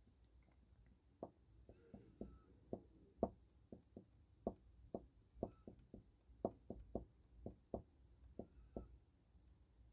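Faint, soft tapping: about twenty short knocks at an uneven two to three a second, starting about a second in, like fingertips tapping on a hard surface.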